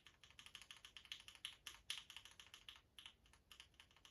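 Everglide Aqua King mechanical keyboard switch pressed and released over and over: a steady run of faint, quick clacks, several a second.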